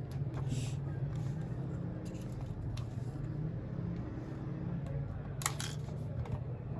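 Steady low hum of room or background noise, with a few scattered soft clicks and rustles from desk work, the most noticeable a short rustle about five and a half seconds in.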